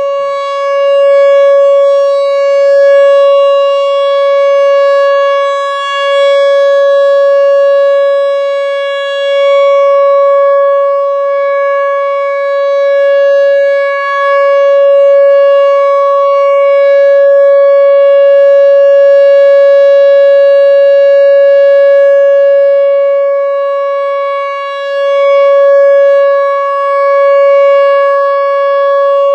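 Whelen Vortex R4 outdoor warning siren sounding a steady alert tone at one unchanging pitch on its monthly test, not a wail. Its loudness swells and fades every few seconds as the rotating head sweeps past.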